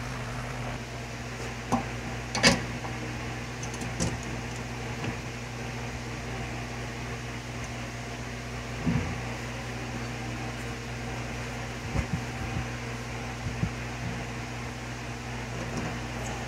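A steady mechanical hum like a shop fan, with scattered sharp metallic clicks and knocks as a turned wooden bowl is worked free of the lathe chuck with a metal bar. The loudest knock comes about two and a half seconds in.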